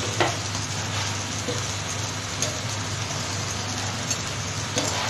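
Oiled chicken skewers sizzling on a wire grill stand over an open gas flame: a steady hiss with a couple of sharp crackles.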